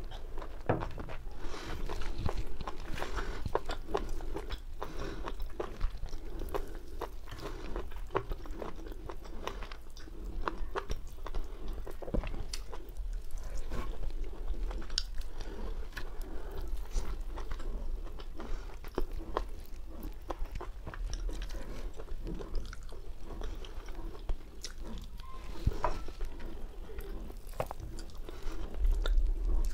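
A person eating whole roasted chicken: chewing and biting with frequent short wet clicks and crunches, and the meat pulled apart by hand.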